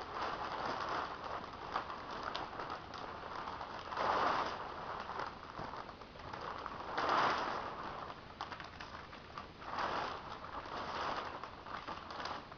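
Sheet of 6 mil plastic rustling and crinkling as it is handled, in repeated swells every few seconds with small crackles between.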